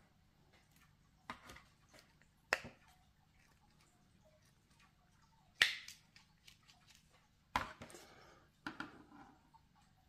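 Sharp plastic clicks of a small one-handed bar clamp being squeezed and adjusted, its mechanism catching. About five separate clicks a second or more apart, the loudest a little past the middle.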